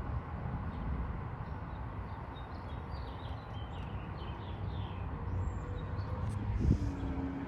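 Wind buffeting the microphone in a steady low rumble, between strong gusts. A few short chirps sound about three to four seconds in, and there is a low bump near the end.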